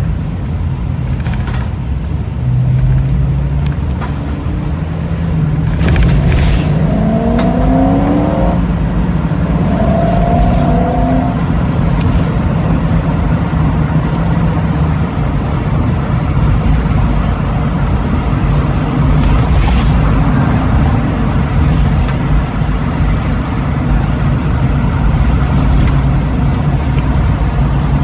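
Car engine revving up twice in quick succession, its pitch rising each time, over a steady low drone of engine and tyre noise heard from inside a moving car's cabin.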